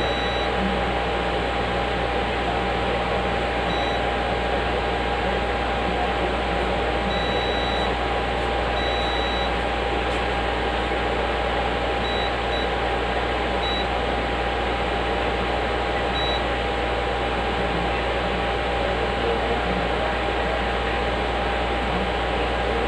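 Multimeter continuity beeper giving short high beeps about eight times, a couple held for nearly a second, as the probes touch test points on a graphics card's board; the beeps stop about two-thirds of the way in. Under it runs a steady fan-like hum with a faint whine.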